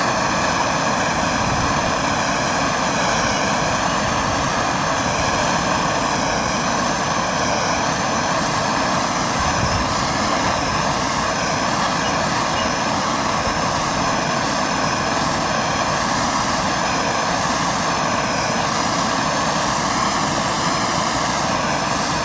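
MAPP gas hand torch burning with a steady, loud rushing noise, heating the end of a 6061 aluminum tube to anneal it.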